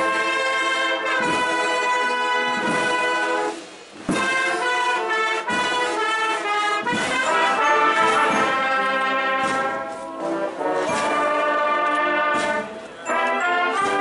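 Brass band playing a slow processional march in sustained chords, with short breaks between phrases about four seconds in and shortly before the end.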